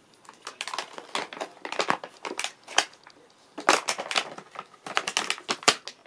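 Plastic packaging and cardboard backing card of a toy jumping frog crinkling and crackling in irregular bursts as a cat bites and claws at it, in two spells with a short lull in the middle.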